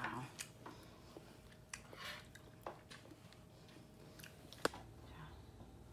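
Quiet sounds of a baby being spoon-fed: soft mouth and chewing noises and small spoon clicks, with one sharp click late on.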